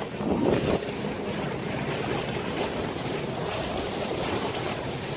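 Wind buffeting the microphone over the steady rush of sea water along the hulls of a sailing catamaran under way, with a brief louder surge about half a second in.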